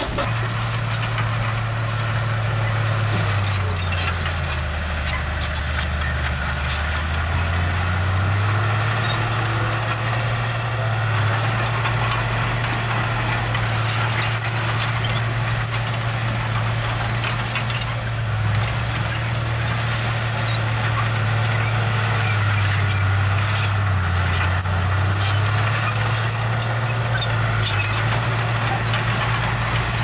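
Diesel engine of a small construction machine running steadily, its pitch sagging lower for a few seconds twice, once a few seconds in and again about three quarters of the way through, before picking back up, with scattered light knocks over the top.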